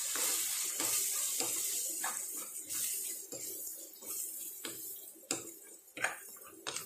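Onion masala with freshly added ground spices sizzling in oil in a non-stick wok as it is stirred with a silicone spatula, with soft scrapes and taps of the spatula against the pan. The sizzle is strongest for the first few seconds and then dies down.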